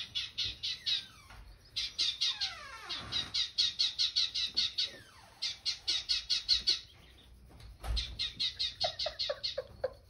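Sparrows chirping in fast runs of sharp, high chips, about six a second, broken by short pauses, played through a television's speakers. Near the end a lower run of short calls comes in.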